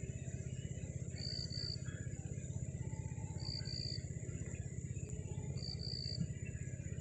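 Outdoor ambience: a short, high two-note chirp repeating about every two seconds over a steady low rumble.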